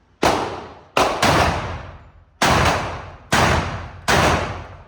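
Gunshots fired at a shooting range: six sharp reports at uneven spacing, two of them close together about a second in, each trailing off in a short echo.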